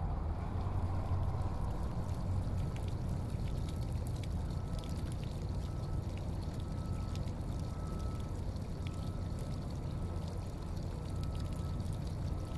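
Fountain water pouring and trickling steadily into a shallow pool from small jets.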